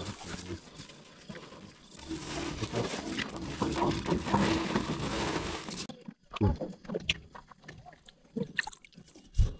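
A cast net and rope being handled in a small boat: a few seconds of rustling and scraping, then scattered sharp knocks, the loudest a thump near the end.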